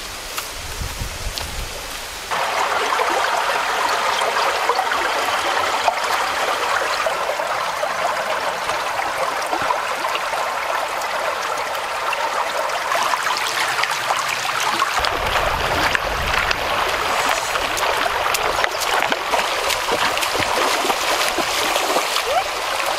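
Shallow stream running over stones, a steady babble that starts abruptly about two seconds in after a quieter start.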